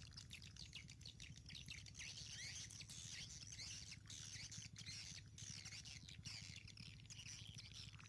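Faint chorus of small birds chirping and twittering, many short quick calls overlapping, over a low steady hum.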